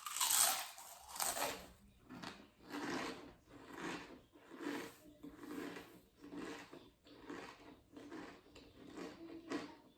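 Close-up crunching and chewing of Pringles potato crisps: a loud crunch at the start, then steady rhythmic chewing at about one and a half chews a second.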